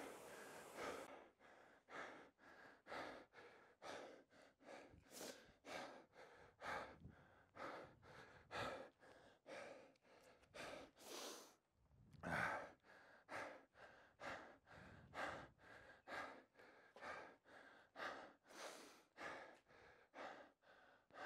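A man breathing hard and fast in a steady rhythm, about two breath sounds a second, winded from hard pedalling on a stationary exercise bike; one louder breath about twelve seconds in.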